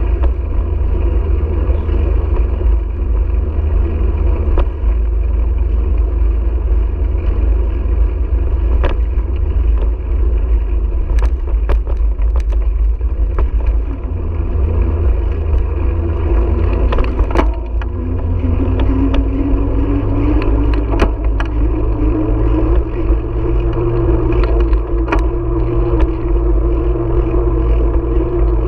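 Wind buffeting the microphone of a GoPro on a moving bicycle, a heavy steady rumble, with tyre and road noise and sharp rattling clicks from bumps. In the second half a hum comes in and rises slowly in pitch.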